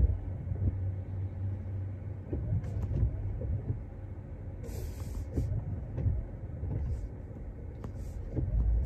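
Low, steady rumble of road and traffic noise heard from inside a Tesla's cabin at a wet intersection, with brief hisses about halfway through and again near the end.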